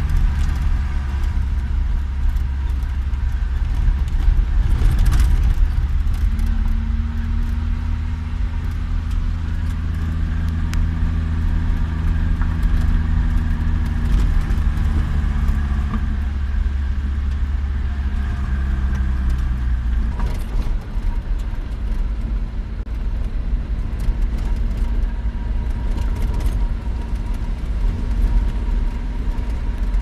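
Car driving on a dirt road, heard from inside the cabin: a steady low rumble of engine and tyres, with the engine's hum rising into a clear tone for a stretch in the middle and a few light rattles and clicks.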